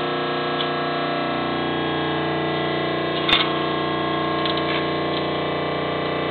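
Hydraulic power unit of a homemade hydraulic metal shear running with a steady whine while the lever is held and the shear knife is driven down through a quarter-inch aluminum plate. A single short crack sounds about three seconds in.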